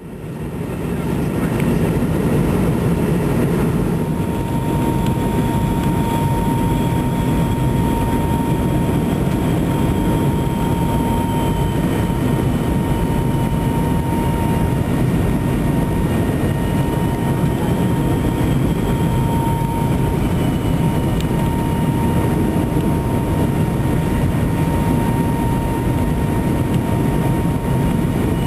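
Cabin noise inside a McDonnell Douglas MD-88 airliner descending on approach: a steady rush of airflow and engine noise from its rear-mounted Pratt & Whitney JT8D turbofans, with a steady whine and a fainter tone that slowly wavers in pitch. It fades in over the first second or two.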